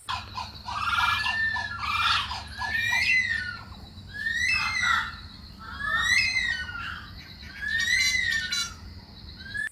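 Australian bird calls: a bird gives a series of harsh, repeated calls, one about every one to two seconds, over a steady low hum.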